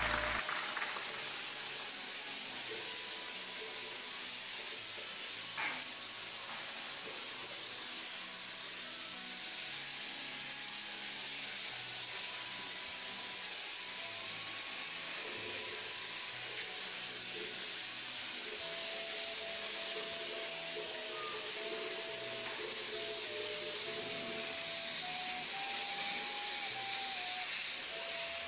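Handheld shower head spraying water, a steady hiss, with one brief knock about six seconds in.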